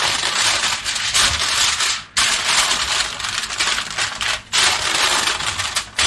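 Aluminium foil being crinkled and pressed: a loud, dense crackling in three stretches of about two seconds each, with short pauses between them.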